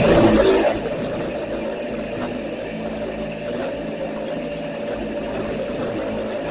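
Angle grinder spinning a shrinking disc against a steel quarter panel, heating the metal to shrink out a dent. Under a second in, the sound drops sharply in level, and the machine runs on more quietly and steadily.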